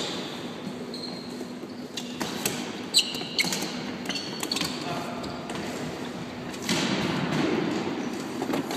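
Floorball play in an echoing sports hall: plastic sticks knocking against the ball and each other, with sneakers squeaking on the floor. A sharp knock about three seconds in is the loudest sound.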